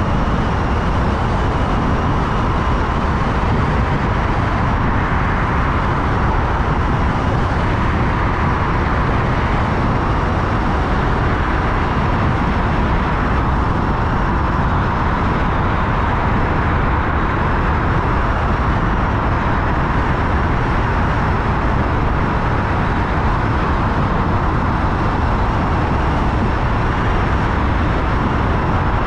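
Steady road noise of a car driving through a motorway tunnel: tyre and engine noise at constant cruising speed, with a steady whine underneath.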